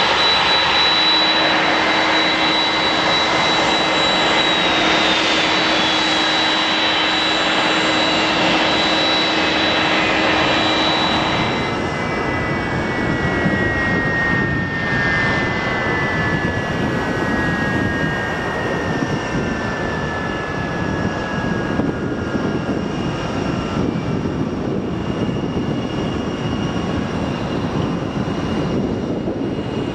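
Jet airliner engines running at taxi, a steady noise with a high whine. About a third of the way in the sound changes, and then a whine slowly falls in pitch for several seconds.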